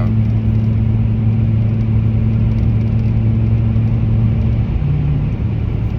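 A car driving, heard from inside the cabin: a steady low road rumble with a constant engine hum. About five seconds in, the hum briefly rises in pitch and then drops back.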